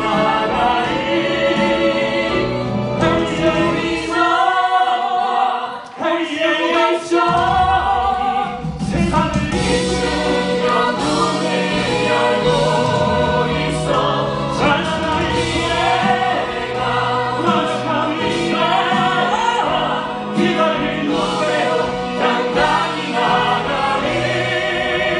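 A musical-theatre song sung live through headset microphones over instrumental backing; a woman sings near the start, then a man sings solo.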